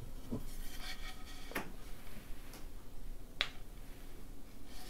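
Quiet handling of a painted wooden icon panel as it is lifted and kissed: a few soft clicks and taps, with a short sharp click about three and a half seconds in.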